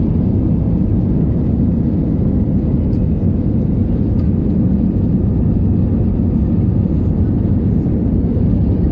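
Cabin noise inside an Airbus A320-family airliner on approach with flaps extended: a steady, deep rush of engines and airflow heard from a window seat.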